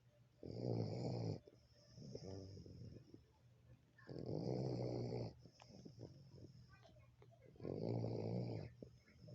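A pet dog snoring: three loud buzzing snores, each about a second long and coming about every three and a half seconds, with softer breathing between them.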